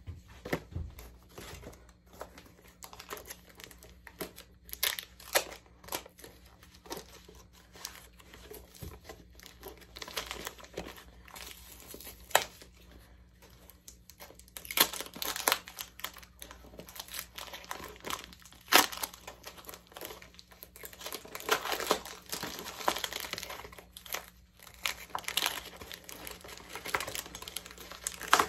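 Paper shipping mailer being handled and torn open by hand: irregular crinkling and crackling of paper, with louder stretches of tearing past the middle and again near the end.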